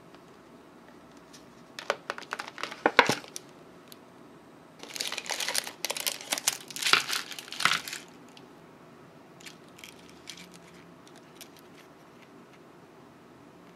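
Cellophane candy wrappers and plastic packaging crinkling as wrapped lollipops are handled and pulled out of a plastic canister, in two bursts. A few faint light clicks follow.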